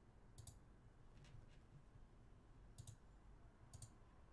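A few faint, sharp computer-mouse clicks, four of them spread irregularly, over near-silent room tone.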